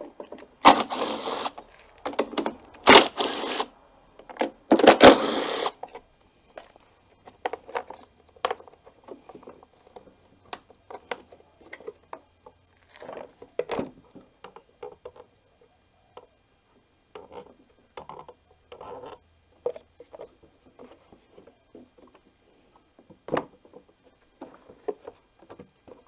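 Cordless drill running in three short bursts of about a second each, backing out the screws of a mower's engine cover. After that, scattered light clicks and knocks of the plastic cover and parts being handled and lifted away.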